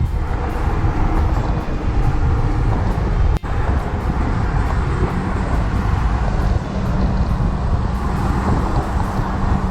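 Jeep Wrangler JKU driving along the road: steady engine, tyre and wind noise that cuts out for an instant about three and a half seconds in. A steady low hum joins it about two-thirds of the way through.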